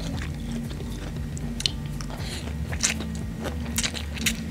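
Close-up mouth sounds of a man eating fried noodles: wet chewing with frequent sharp clicks and smacks, and noodles slurped into the mouth near the end. A steady low hum runs underneath.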